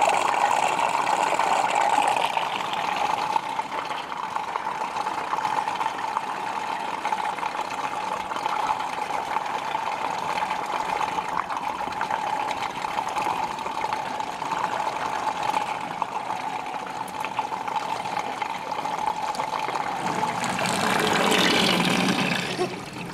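Water draining from two filled sinks down through clear plastic P-traps, one trap vented and one with its vent blocked, a steady rushing flow. Near the end it swells louder for about two seconds as air is drawn down through a trap with the last of the water, then falls away.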